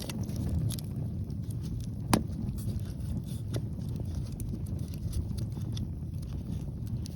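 Wood fire crackling with scattered sharp pops, one louder pop about two seconds in, over a steady rumble of strong wind on the microphone.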